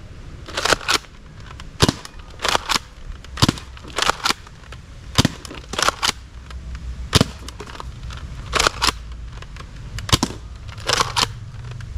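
A toy gun firing, about fifteen sharp pops at an irregular pace, some in quick pairs, over a low steady hum.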